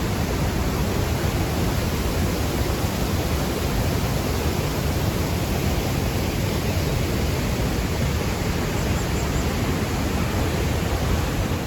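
The Rhine Falls' water pouring down in a steady, loud rush of noise.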